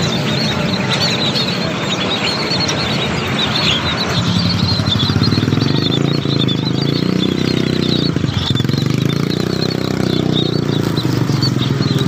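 A crowd of caged scaly-breasted munias chirping, many quick high chirps overlapping without a break, over the steady low running of an engine.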